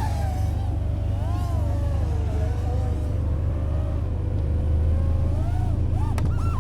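5-inch FPV quadcopter (Nazgul Evoque F5x) motors whining in flight, the pitch wavering up and down with throttle changes, with a couple of quick sharp rises near the end. A steady low rumble runs underneath.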